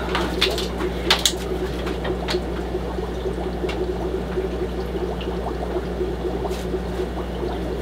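Fish-room background: the steady hum of air pumps with a continuous fluttering bubbling of aeration in the tanks. A few sharp clicks, the loudest about a second in, come from handling at the tank.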